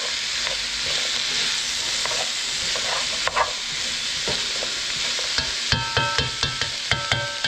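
Sliced onions and bell peppers sizzling as they stir-fry in a metal pot, turned with a spoon. Near the end comes a quick run of ringing knocks as the spoon strikes the pot.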